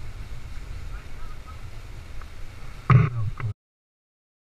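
Low rumble of wind on the microphone, then about three seconds in a man's voice gives a brief loud call or grunt that is cut off abruptly into silence.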